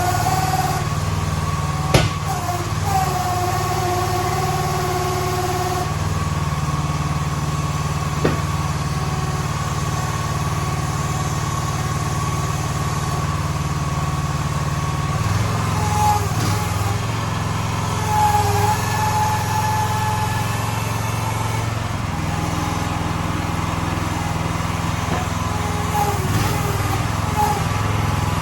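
Small engine of a towable mini excavator running steadily, with a whining tone that comes and goes and shifts in pitch now and then, and a couple of sharp clicks.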